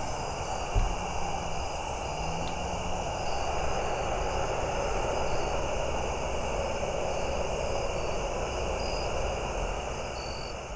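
A steady distant engine drone, a little louder from about three seconds in.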